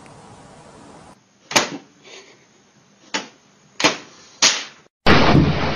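Four sharp, short clacks spaced unevenly, about half a second to a second and a half apart. A loud, noisy sound starts abruptly near the end.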